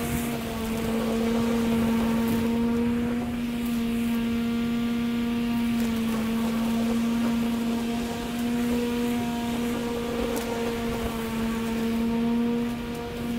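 Ego cordless electric push mower running with a steady, even hum while cutting grass.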